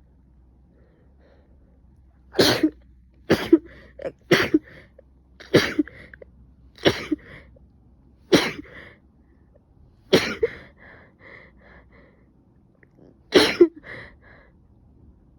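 A person with a cold coughing and sneezing: about ten short, harsh bursts after a quiet first two seconds, irregularly spaced, a few coming close together in pairs.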